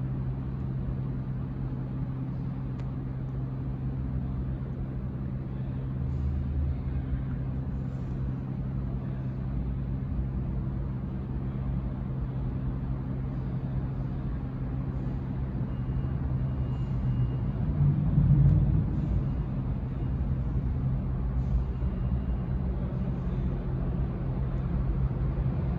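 Subway platform ambience: a steady low hum and rumble of a train approaching in the tunnel, with a brief swell of low rumble about two-thirds of the way through.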